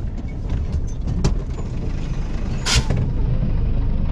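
Heavy truck's diesel engine running with a low rumble, heard from inside the cab as the lorry creeps across a soft, muddy sugar-beet field. Scattered knocks and rattles come through, and a brief sharp hiss sounds about two-thirds of the way in.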